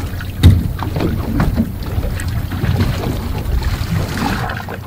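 Wind buffeting the microphone on a small boat at sea over a low steady rumble, with a sharp knock about half a second in and scattered lighter knocks as the fish is handled.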